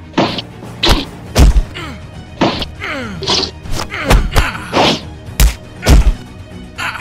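Dubbed fight sound effects: a fast series of about ten punch and kick impacts, heavy thuds and whacks, several led in by swishes that fall in pitch, over background music.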